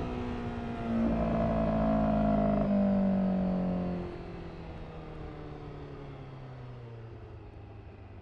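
Honda CBR1000RR-R SP Fireblade's inline-four engine through an Akrapovic exhaust, its note falling in pitch throughout. It is loudest between about one and four seconds in, with a step in pitch partway through, then drops off and fades.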